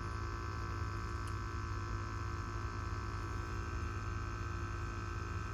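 Sampling pump of an SDM-3R docking station running steadily during a bump test of a GX-3R gas detector, drawing in fresh air: an even low hum with a faint steady whine.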